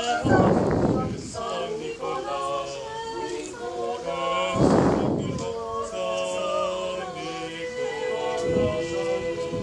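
Voices singing a song with long held notes. Loud low rumbles cut across the singing about half a second in and again near five seconds, with a weaker one near the end.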